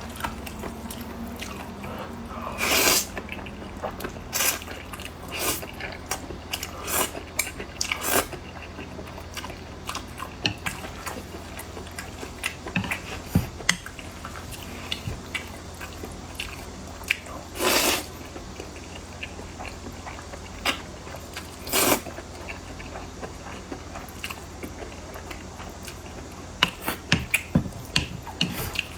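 A person chewing and biting food close to the microphone: irregular wet mouth clicks and smacks, with a few louder, longer noisy bites or slurps about three seconds in, twice in the second half, and a quick run of clicks near the end.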